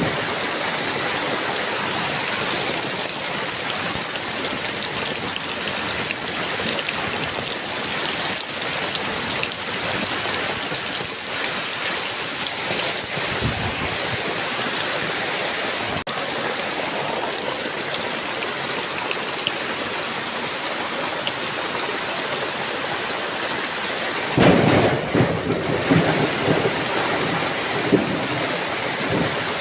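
Heavy rain falling steadily. A rumble of thunder swells about three-quarters of the way through, with a fainter low thump of thunder near the middle.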